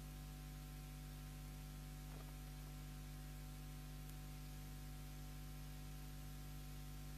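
Steady electrical hum, several pitches held together, over a constant hiss: the background noise of the sound or recording system with no chanting or speech.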